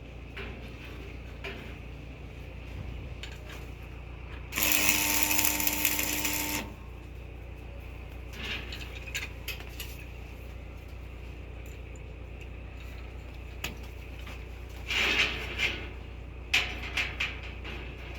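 A power tool runs for about two seconds, then small metal parts clink and knock several times near the end, over a steady low hum.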